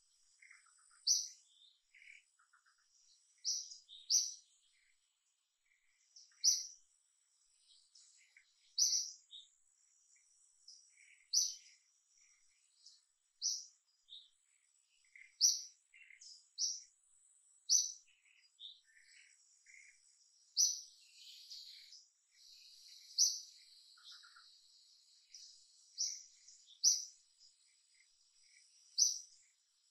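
Wild birds calling: a short, sharp, high chirp repeats about every two seconds, among softer scattered calls. Under them runs a faint, steady high hum of insects.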